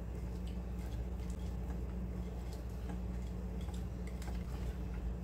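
Steel wire whisk stirring thick chocolate cake batter in a glass bowl, its wires ticking faintly and irregularly against the glass, over a low steady hum.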